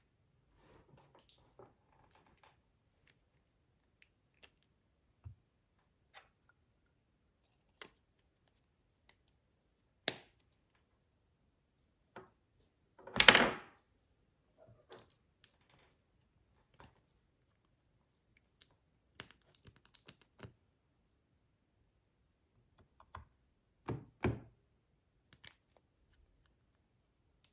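Scattered small clicks, taps and knocks of hands handling small objects at close range, with one louder knock about thirteen seconds in and a quick run of clicks a little later.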